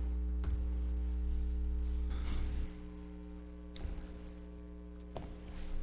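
Steady electrical mains hum in the microphone feed, with its deepest part dropping away a little under halfway through, and a few faint clicks and knocks.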